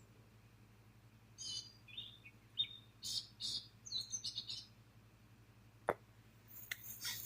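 Birds chirping in a quick string of short, high chirps lasting about three seconds, followed by a single sharp click and a brief rustle near the end.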